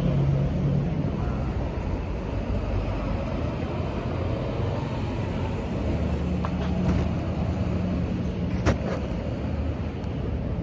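Steady low rumble of road traffic, with a vehicle engine hum that comes up at the start and again for a few seconds past the middle. A single sharp click sounds near the end.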